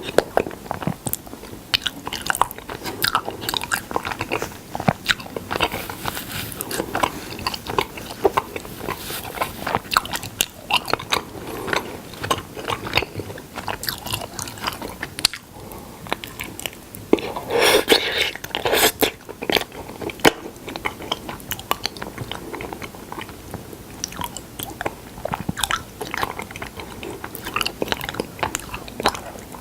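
Close-up eating sounds of a person biting and chewing honey, with wet crackles and clicks, denser and louder about two-thirds of the way through.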